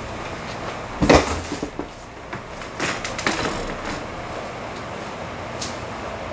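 A loud knock about a second in, then several lighter knocks and clatters over a steady room hum.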